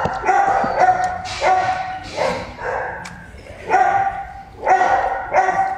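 A dog giving a rapid string of short, high-pitched yelping barks, about a dozen in three bunches.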